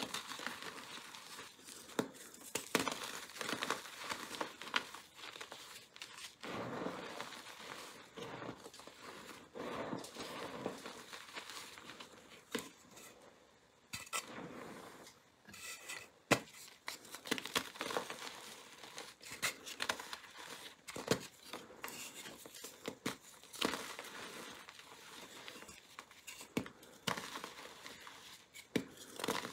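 Blocks of gym chalk coated in glitter and coloured powder crushed and crumbled by hand: dry crunching and crackling throughout, with many sharp snaps as pieces break off. It goes briefly softer about halfway through.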